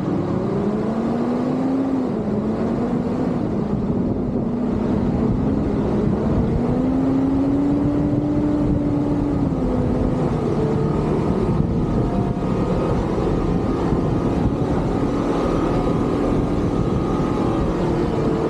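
An off-road SUV's engine running while driving, its pitch rising and falling as the revs change over a steady low rumble.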